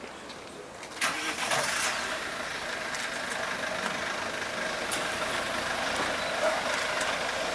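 A vehicle engine idling, coming in suddenly about a second in and then running steadily.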